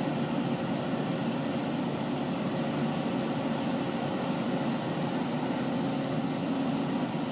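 Excavator's diesel engine running steadily, a constant even hum.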